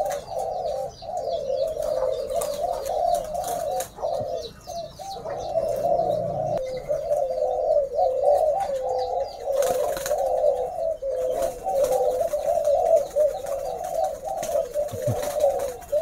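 A chorus of spotted doves cooing at once, their coos overlapping without a break, with faint, quick high chirping running underneath.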